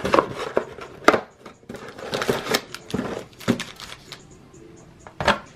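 Crinkling and tearing of packaging as a sealed box of trading cards is opened by hand. Irregular crackling bursts and clicks run for about the first three and a half seconds, then it goes quieter, with a sharp tap near the end.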